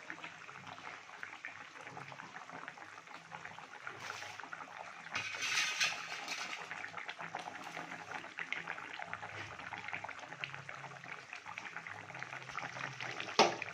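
Mustard-gravy fish curry bubbling and crackling as it simmers in a kadai, with a louder stretch about five seconds in and a sharp click near the end.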